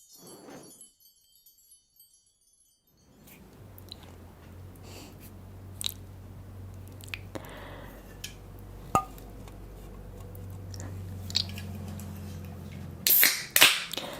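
Close-miked eating sounds of spicy cheese ramen noodles with tobiko: chewing with scattered small clicks and smacks, starting after about three seconds of near silence, and two much louder bursts near the end.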